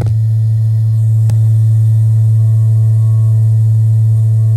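Gas-fired water heater firing with a loud, steady, deep moaning drone with ringing overtones, which the technician hears coming from the tank rather than the burner flame. A faint tap about a second in.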